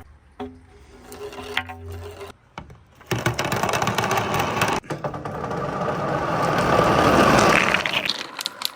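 Many marbles clattering and rolling together down a wooden marble-run course, a dense rattle of rapid clicks. It starts about three seconds in, swells, then thins out near the end. A steady low hum comes before it.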